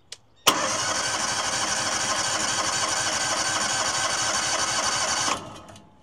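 A click, then an electric starter cranking the sawmill's cold gas engine with the choke out for about five seconds. It runs at an even, pulsing rhythm without the engine catching, then stops.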